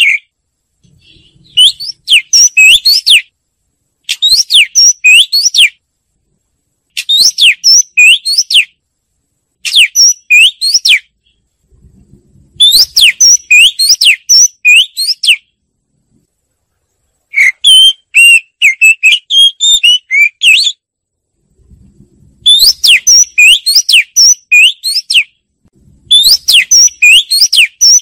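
Oriental magpie-robin singing: loud phrases of clear, rising whistled notes, about eight phrases with short pauses between them.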